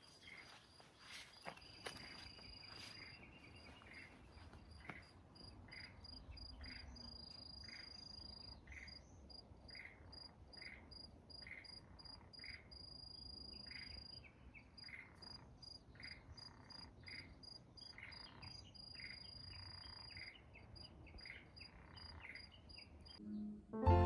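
Frogs croaking in a steady series, a little more than one call a second, with a thin high trill stopping and starting behind them.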